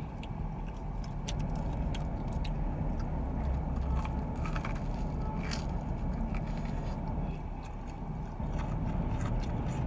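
Biting and chewing crunchy potato-crusted Korean corn dogs, with short crackles scattered through, most of them about four to six seconds in. A steady low rumble of the car's cabin runs underneath.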